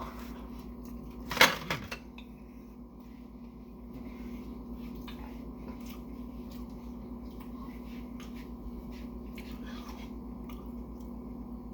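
Steady low hum with faint clicks and small handling noises, broken about a second and a half in by one short, loud vocal sound from the eater that falls in pitch.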